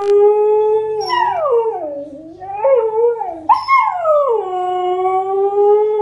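Husky howling: a long held note that slides down and wavers, then a second howl about three and a half seconds in that starts high, falls and settles into a steady held note.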